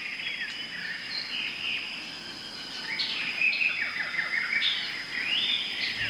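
Birds chirping and calling in quick repeated phrases over a steady high whine.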